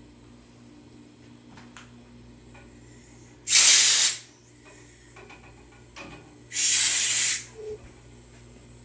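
Two short blasts of compressed air hissing from a shop air line fitting: the first about three and a half seconds in, about half a second long, the second a few seconds later and a little longer. A few light clicks of metal fittings come between them.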